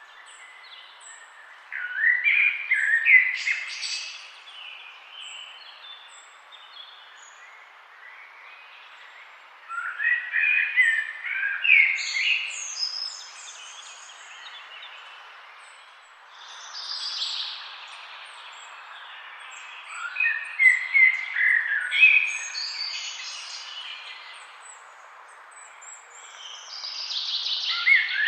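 Songbirds singing in bursts of quick, chirpy phrases a few seconds long, one outburst every several seconds, over a steady background hiss.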